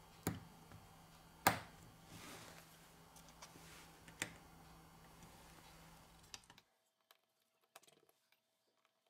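Sharp clicks and taps of small smartphone parts and tweezers being handled during reassembly: three clear clicks, the loudest about a second and a half in. Faint ticks of a small screwdriver follow near the end.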